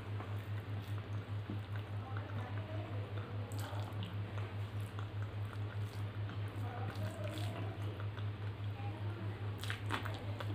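Eating by hand: soft wet squishes of rice and dal being mixed on a steel plate, and mouth-full chewing, with a few clicky smacks. Under it all runs a steady low hum that throbs evenly.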